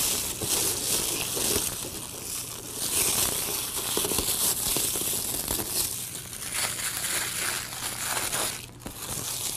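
Wrapping paper on a gift box and ribbon rustling and crinkling under the hands, an uneven run of small crackles as the ribbon is wound around the box.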